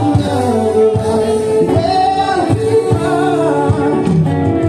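Live acoustic band playing a song: guitars with a singer on microphone, amplified through PA speakers.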